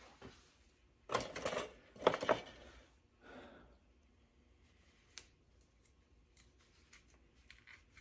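Small hand tools being handled: two short scraping, rattling noises about a second and two seconds in, a softer one just after, then a few light clicks.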